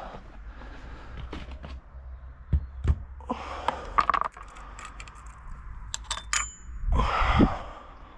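Metal tools and parts clinking and knocking as they are handled, with a short bright metallic ring about six seconds in.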